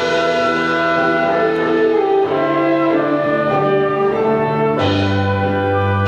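Orchestral underscore of slow, held chords. A louder chord with a deep bass note comes in near the end.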